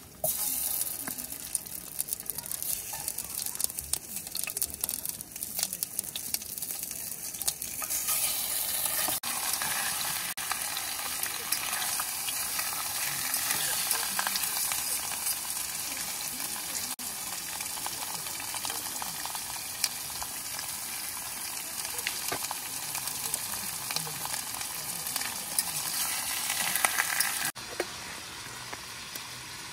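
A steady, crackling sizzle-like hiss that starts suddenly and cuts off suddenly near the end.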